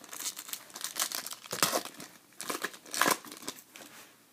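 Foil wrapper of a Topps Chrome trading-card pack crinkling and tearing as it is handled and ripped open, in irregular crackles with the loudest rips about one and a half and three seconds in.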